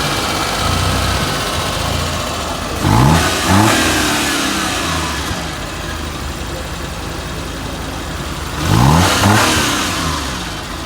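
Suzuki Mehran's 800 cc three-cylinder petrol engine idling, blipped twice in quick succession about three seconds in and again about nine seconds in, the revs rising and dropping back each time, as it is test-run after tappet adjustment and a timing-belt bearing change.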